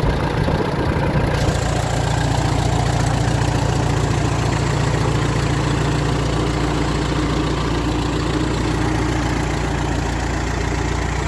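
Minneapolis-Moline GTA vintage tractor's four-cylinder engine idling steadily.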